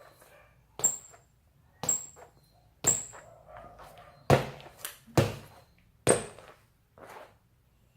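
Sharp thuds about once a second, seven in all, several ending in a brief high squeak, like rubber-soled basketball shoes striking and scuffing a hard floor.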